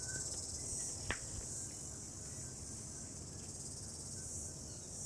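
A steady high-pitched chorus of insects, pulsing slightly, with a single sharp click about a second in.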